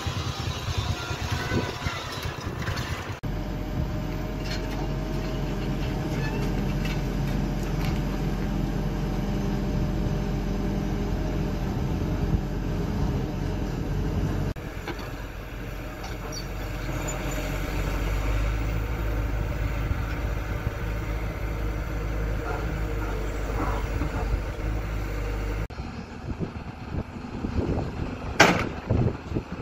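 Diesel engines of heavy construction machinery, mostly hydraulic excavators, running steadily in several clips cut one after another. There is a single sharp knock near the end.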